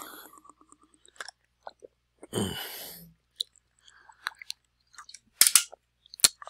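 Small clicks and taps of fingers pressing display flex cable connectors onto an iPhone's logic board, with a short rustling burst about two seconds in and two sharp snaps near the end. A faint rapid pulsing stops about a second in.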